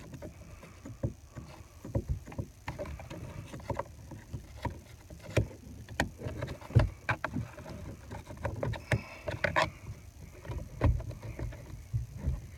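Irregular knocks, clicks and scraping of hands and a tool working behind a pickup's steering wheel to free the airbag's last fastener, over a low rumble of handling noise.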